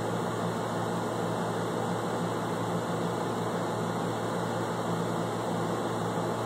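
Steady hiss with a low hum underneath, like a fan or air conditioner running; no distinct events.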